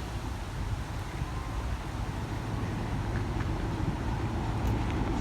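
Class 27 and Class 26 diesel locomotives running as they come in, a low engine rumble growing steadily louder.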